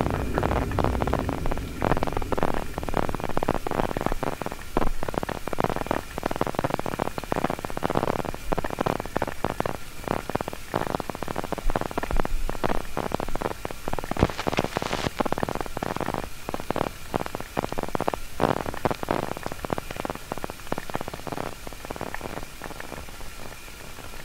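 Dense, irregular crackling and rumbling noise with a faint steady high tone underneath, typical of a generated ambient noise texture.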